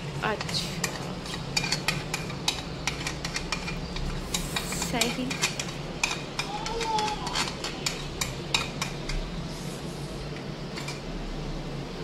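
A metal spoon stirring and scraping in a karahi of chicken cooking with yogurt and spices, clinking against the pan many times over a steady sizzle.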